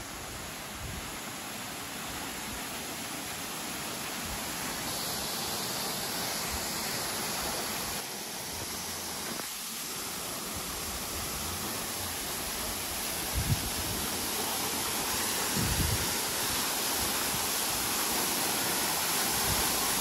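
Waterfall: a steady rush of falling water that grows slowly louder, with a couple of brief low thumps about two-thirds of the way through.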